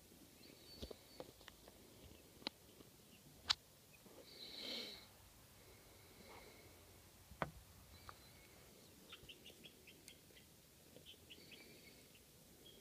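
Young chickens peeping faintly in short high cheeps, with one longer call about five seconds in and a quick run of cheeps near the end. Several sharp taps of beaks pecking at feed on the ground.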